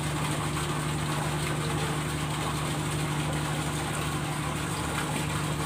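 Engine idling with a steady, even low hum.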